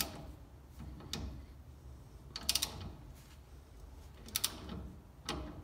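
Ratcheting torque wrench tightening a wheel-hub spindle nut toward 50 foot-pounds, heard as short bursts of ratchet clicks on each back-stroke, four or five bursts about a second apart.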